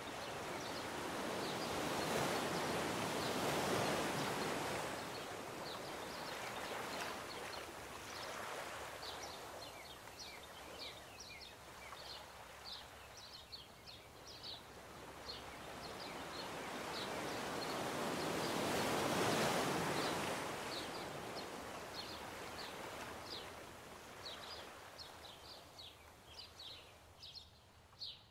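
Surf washing onto the beach, swelling twice and fading between, with small birds chirping rapidly from about a third of the way in.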